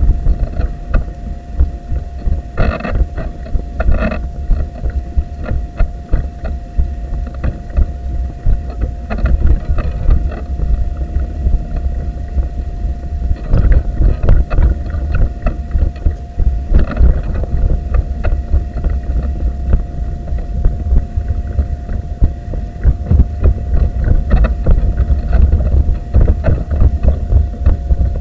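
Wheelchair rolling along paving, heard through a camera mounted on the chair: a loud, continuous low rumble and rattle with frequent knocks as the wheels cross bumps and joints, over a faint steady hum.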